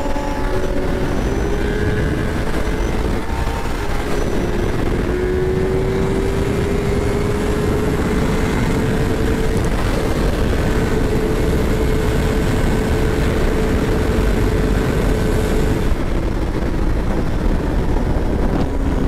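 Sport motorcycle engine running at highway speed under heavy wind rush, its steady drone creeping up in pitch as the bike gains speed. The drone stops about three-quarters of the way in.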